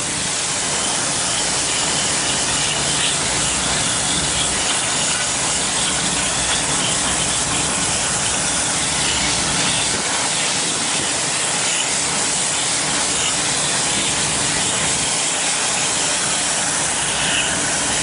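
Garden hose with a spray nozzle sending a steady stream of water through the fins of an air-conditioner condenser coil, rinsing the acid coil-cleaner foam out of it. An even, unbroken hiss of spraying water.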